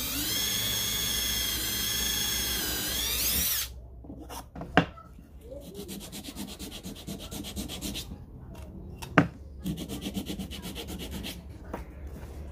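Cordless drill running steadily as it drills into plywood, its pitch rising just before it stops about three and a half seconds in. Then two sharp knocks, and a sanding sponge rubbed back and forth in quick strokes along the plywood edge, in two spells.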